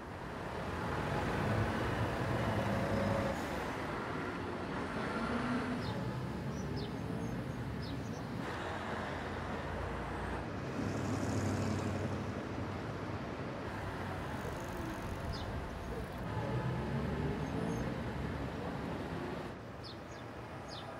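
Road traffic ambience: a steady wash of traffic noise, with vehicles passing and a few short high chirps over it.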